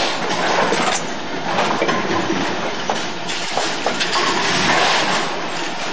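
Bowling alley din: bowling balls rumbling down the lanes and pins clattering, with a few sharp knocks.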